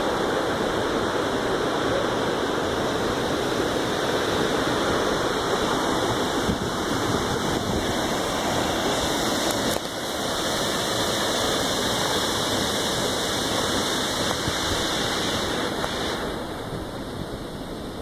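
Waterfall crashing down onto rocks: a loud, steady rush of falling water. It dips briefly about halfway through and falls somewhat quieter near the end.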